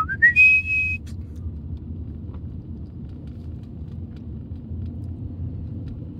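Steady low rumble of a car driving on a city road, heard from inside the cabin: road and engine noise. A high held note of a tune ends about a second in.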